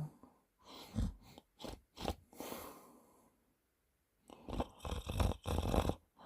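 A sleeping man's snorts and wet, crackly mouth and throat noises in irregular short bursts, a pause about halfway, then a denser run of snorting bursts near the end.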